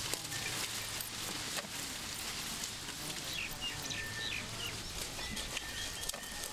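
Natural ambience: a thin, steady high-pitched tone over a soft hiss, with a brief run of quick bird chirps a little past the middle.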